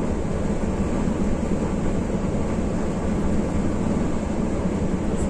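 Steady engine and road noise inside an intercity coach cabin while the coach cruises along a highway.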